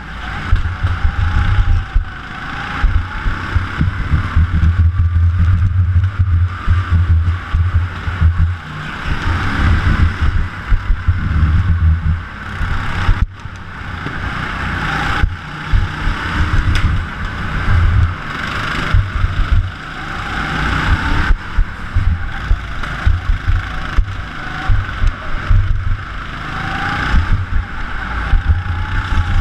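Rental go-kart running at speed as heard from onboard: a rough low rumble with uneven thumping, and a faint engine note that rises and falls through the corners. A single sharp knock about thirteen seconds in.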